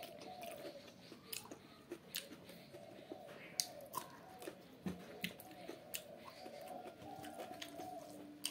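Close-up chewing and biting of a mouthful of noodles and pork, with irregular short sharp clicks, such as a spoon against the bowl, several times.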